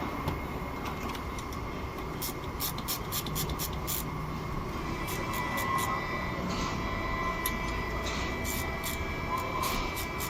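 Car engine running steadily at idle, with a run of sharp ticks about two to four seconds in and a few more later.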